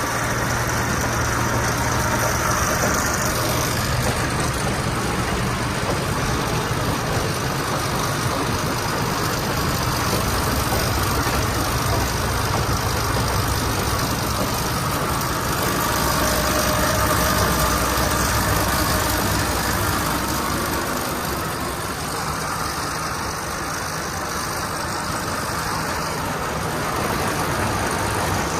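Tractor engine running steadily at a constant speed, easing slightly in level about three quarters of the way through.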